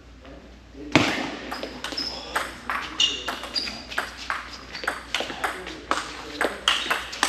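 Table tennis rally: the celluloid ball is struck by rubber-faced rackets and bounces on the table, giving a sharp knock every third of a second or so. The knocks start about a second in, after the serve.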